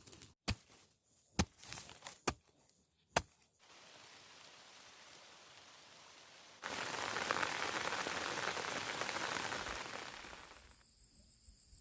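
Four sharp knocks, about a second apart. Then a faint steady hiss, which about halfway through turns into a loud rushing hiss for some four seconds before fading.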